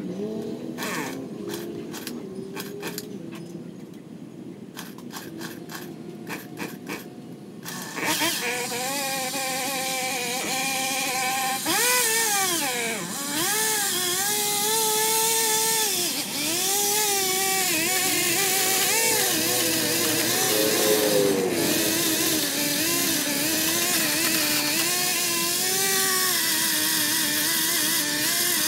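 A pole saw's small engine running from about eight seconds in, its pitch rising and falling as it revs while cutting into branches. Before it starts the sound is quieter, with scattered sharp clicks.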